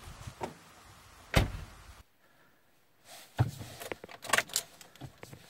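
The door of a Volvo V70 closing with a single heavy thump about a second and a half in. Later, from inside the cabin, a quick run of sharp clicks and knocks before the engine is started.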